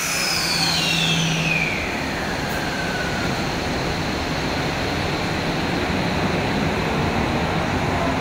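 Tokyo Metro 05-series subway train starting to pull out of an underground station platform, running with a steady rumble. A high whine falls away during the first three seconds.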